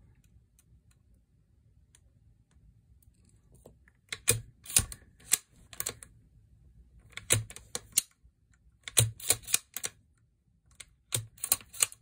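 Sharp metallic clicks from a Remington 783 rifle's action and Timney trigger being worked by hand while the trigger pull is tested, coming in four short bursts of a few clicks each after a quiet opening few seconds.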